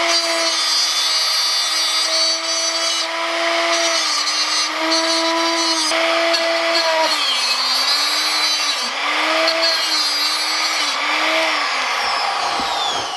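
High-speed power tool cutting, shaving down a part so the harness bar's bolt can pass through. Its steady whine sags in pitch several times as it bites under load, then winds down near the end.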